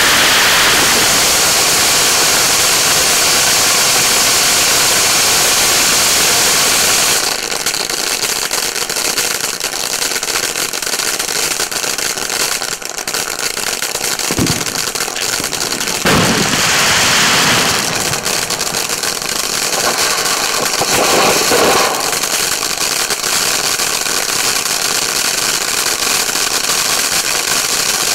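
Starget 'Flashing Light' ground fountain firework spraying sparks with a steady hissing rush and crackle. It is loudest at first, falls off about seven seconds in, then picks up again around sixteen seconds.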